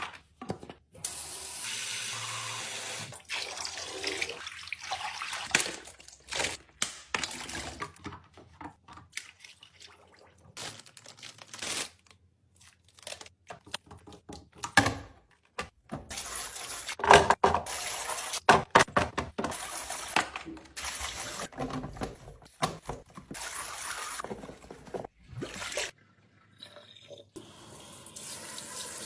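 Kitchen handling sounds while a fridge is restocked: containers, lids and packaging knocking and clicking as they are handled and set down, with stretches of running or pouring water.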